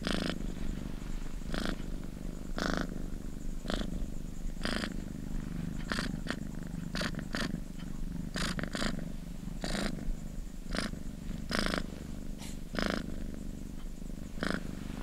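Domestic cat purring steadily while it eats, with short sharp eating sounds about once a second.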